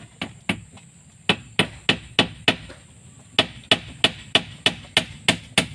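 Hammering on wood: quick, even blows about three a second, with a short break about halfway through before they resume.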